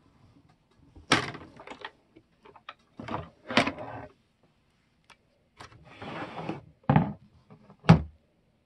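Clear plastic cutting plates and an embossing folder being handled at a hand-cranked die-cut and emboss machine: a series of clunks and sliding scrapes. A longer scrape comes about six seconds in, and a sharp knock comes near the end.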